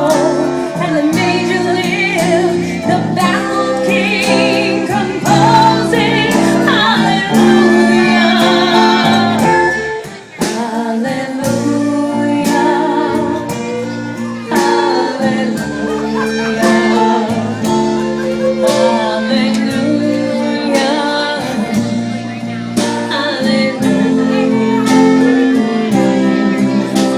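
Live song: a singer with a wavering vibrato over strummed acoustic guitar, with a short break in the sound about ten seconds in.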